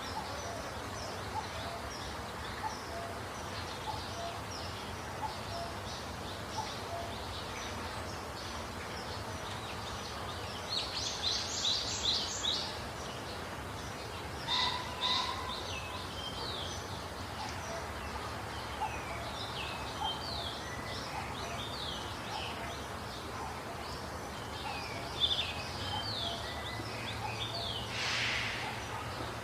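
Several songbirds chirping and singing in short, falling notes, with a louder quick run of notes about eleven seconds in, over a steady low background rumble of outdoor noise.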